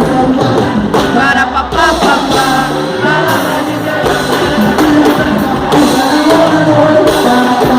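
Loud Christian praise music with singing.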